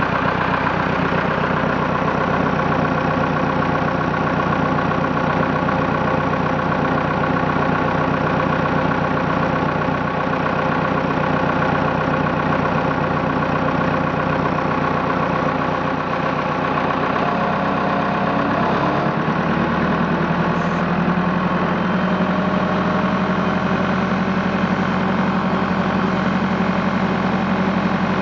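Massey Ferguson 275 tractor's four-cylinder diesel engine running steadily after a long cold start. Its note shifts about two-thirds of the way in, then holds steady again.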